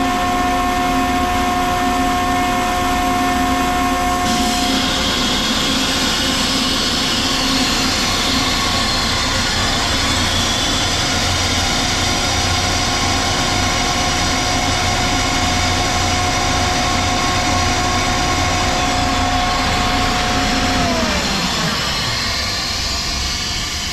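Ingersoll Rand SSR-EPE50 50 hp rotary screw air compressor running with a steady whine; about four seconds in a high hiss of air joins. Near the end the whine slides down in pitch as the motor and screw air end spin down, while the air hiss goes on.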